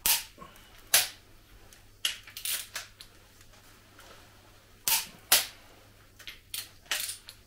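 Sharp metallic clicks and knocks of tools and parts against a diesel engine block: about a dozen, singly and in quick clusters, loudest near the start and about five seconds in.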